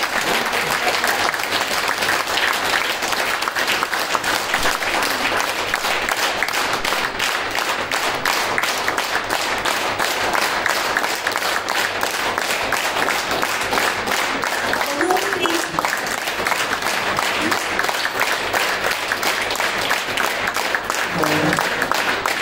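Audience applauding steadily and at length, with a voice briefly heard over it twice in the latter part.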